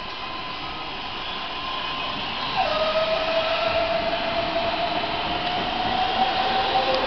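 MARTA rapid-transit train moving along an underground station platform: a steady rumble with a motor whine over it. About two and a half seconds in the sound grows louder and the whine drops in pitch, then slowly climbs, dipping again right at the end.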